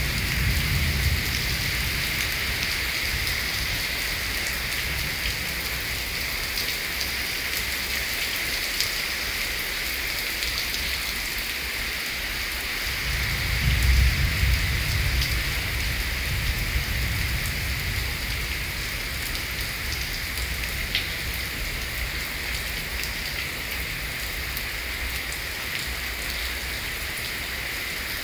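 Heavy rain pouring onto paving, a steady dense hiss. Low rumbles of thunder come in near the start and again, louder, about halfway through.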